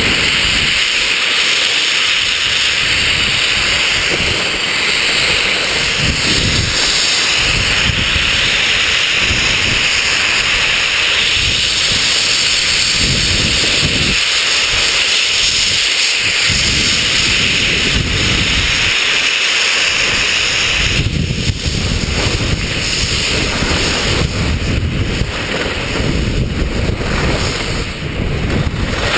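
Wind buffeting the microphone over a steady hiss of skis scraping across packed snow on a mogul run. About 21 seconds in, the low gusting breaks up into choppier bursts.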